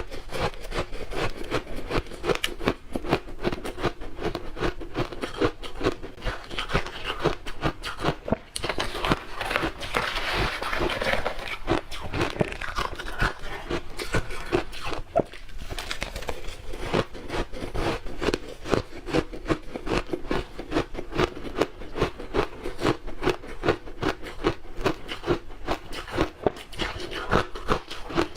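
Close-miked chewing of crunchy ice: dense, rapid crunching and crackling that goes on without a break, with a hissier, more intense stretch around ten seconds in.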